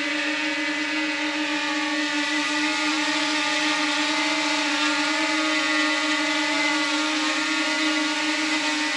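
DJI Mini 2 quadcopter's propellers buzzing steadily in flight: a steady hum with many overtones over a hiss, its pitch wavering slightly.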